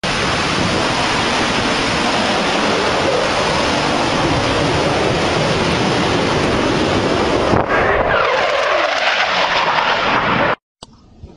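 A jet fighter making a low pass: loud, steady jet noise, with a whine whose pitch falls as the aircraft goes by about eight seconds in. The noise cuts off suddenly near the end, leaving faint wind on the microphone.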